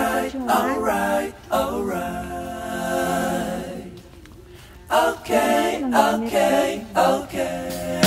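Music: unaccompanied vocal singing, with a long held note in the middle, a brief lull about four seconds in, then the singing picks up again.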